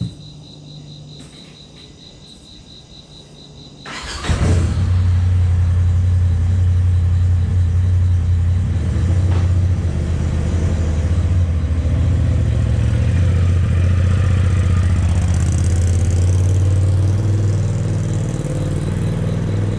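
A vehicle engine comes in abruptly about four seconds in and runs steadily with a strong low hum, after a few seconds of faint background with a thin high whine.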